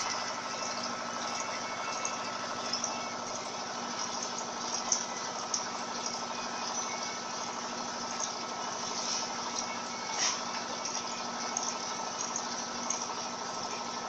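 Electrolux Turbo Economia 15 kg (LTD15) top-loading washing machine in its spin cycle: the basket spinning at speed with a steady motor hum and whir, broken by a few brief clicks.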